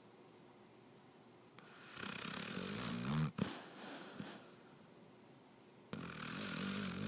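A sleeping pet snoring: two snores about four seconds apart, each lasting about a second and a half, the first ending in a short sharp sound.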